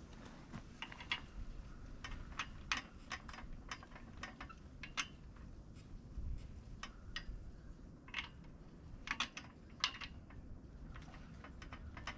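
Metal parts of a miter saw stand clicking and clinking irregularly as they are handled and fitted together during assembly, with a sharper clink near the end.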